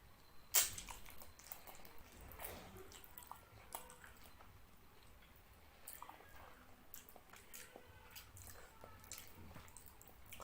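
A person chewing and eating a mouthful of fish curry with rice: wet, close mouth sounds with scattered short smacks and clicks, the sharpest about half a second in.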